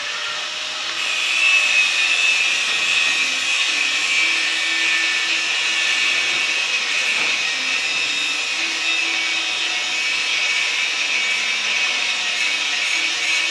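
Steady whirring hiss of a small electric motor, with a faint high tone, unchanged throughout.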